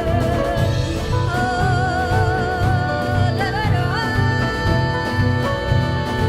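Live music: a woman singing long held notes with a wavering vibrato over a steady low drum beat. About three and a half seconds in, the melody slides up to a higher held note.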